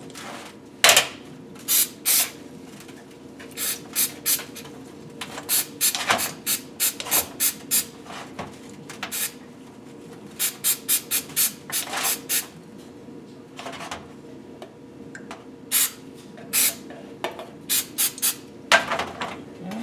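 A metal pick scraping carbon and old oil deposits out of a KA24DE piston's ring and oil grooves: repeated short, sharp scraping strokes in quick clusters with brief pauses between them. A faint steady hum sits underneath.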